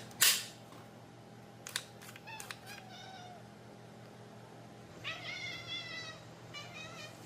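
Domestic cat making meowing, chirping calls: a few short calls about two seconds in, a longer meow about five seconds in, and a short call near the end. A loud short noise just after the start and a few clicks come before the calls.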